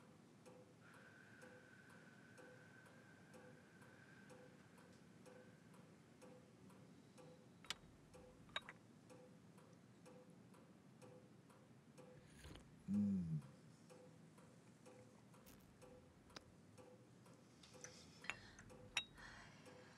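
Steady, even ticking of a clock. There are a few light clicks of a porcelain coffee cup against its saucer, and about two-thirds of the way through one short, low sound that falls in pitch.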